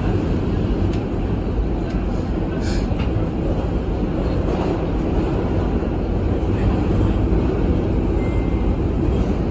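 Inside an R142A subway car running through a tunnel: a steady, loud low rumble of the train.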